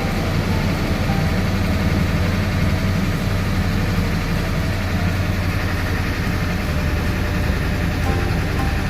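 Ford 7.3 L Power Stroke turbo diesel V8 idling steadily, a continuous low rumble.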